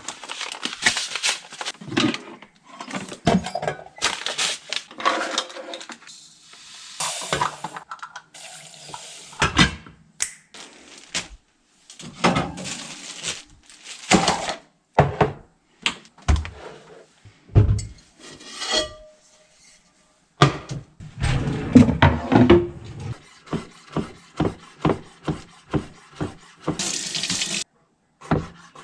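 Kitchen sounds of cooking: dishes and pans clattering, with bursts of running water. Near the end comes a run of evenly spaced knocks, about two a second.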